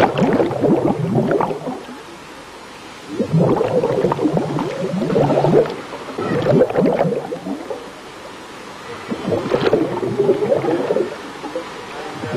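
Scuba diver breathing on a regulator underwater, each exhalation a gurgling burst of bubbles lasting a second or two, with quieter inhalations between, repeating every few seconds.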